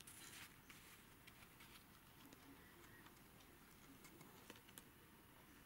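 Near silence, with faint rustling and a few light clicks from the shawl and its label being handled.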